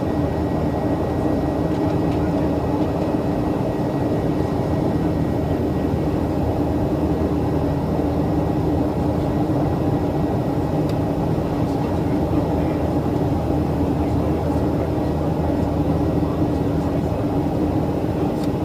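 Steady cabin noise of a Boeing 737-800 in flight, its CFM56-7B engines and the airflow making an even drone with a few steady tones in it.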